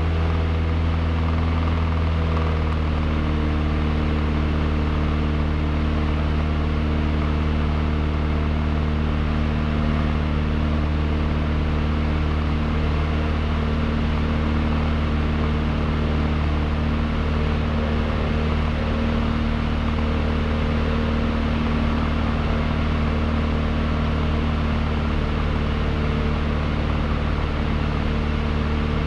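Cessna 152's Lycoming O-235 four-cylinder engine and propeller running steadily in flight, heard from inside the cabin. The engine note shifts slightly about two and a half seconds in.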